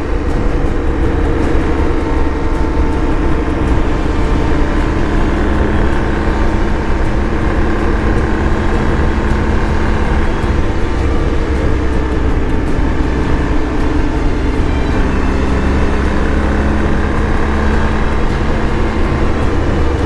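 BMW R 1250 GS Adventure's boxer-twin engine running under way at a steady pace, its hum holding a near-constant pitch over a noisy rumble.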